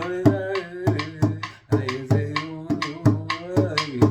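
A small hand drum (tambor) beaten in a steady rhythm of about three strokes a second, accompanying a man's voice that holds the last sung word at the start.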